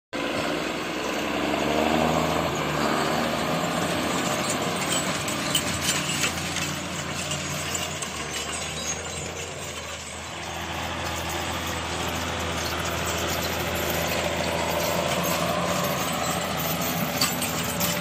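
John Deere 6630 tractor's six-cylinder diesel running steadily under load as it pulls a tine harrow, its engine note shifting up and down as it passes. A few light clinks are heard over it.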